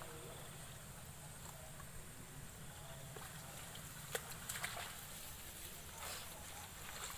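Faint rustling of wet leaves and a few sharp clicks as genjer (yellow velvetleaf) stalks are picked by hand. The clicks come around four seconds in and again near six seconds, over a steady low hum.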